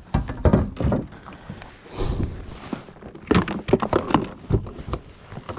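Irregular knocks and thuds as a just-measured bass and fishing gear are handled in a Hobie Pro Angler 14 fishing kayak.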